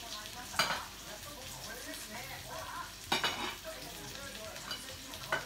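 Meat sizzling in a frying pan on a tabletop gas burner, being turned with chopsticks, with a sharp click about half a second in and a cluster of clicks around three seconds.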